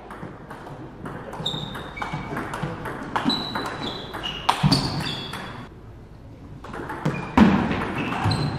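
Table tennis rally: the plastic ball clicking back and forth off the bats and the table, with short squeaks of shoes on the hall floor. It goes quieter for about a second and a half past the middle, then a sharp hit starts play again.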